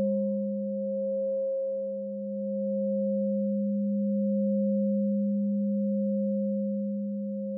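A 10-inch Aqua Aura Gold alchemy crystal singing bowl tuned to G# sounds a steady, sustained pure tone, a low fundamental with a few fainter overtones above it. Its loudness swells and dips slowly as it rings.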